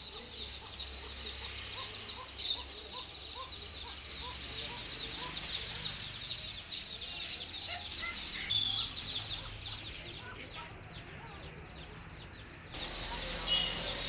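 Many caged birds chirping and twittering busily and without a break. In the first five seconds another bird calls in a run of short, evenly spaced clucking notes, over a low steady hum.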